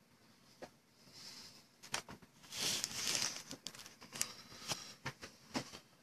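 Rustling and crinkling of something being handled off camera, loudest a couple of seconds in, with scattered sharp clicks and taps.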